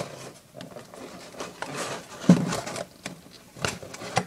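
Cardboard action-figure box being handled and worked at its taped flaps: irregular rustling and scraping with small clicks, and one louder knock about two seconds in.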